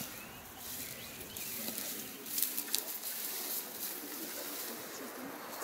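Rustling and crackling of tall grass and undergrowth as someone walks through it, with a burst of sharper crackles about halfway through, and a few faint bird chirps.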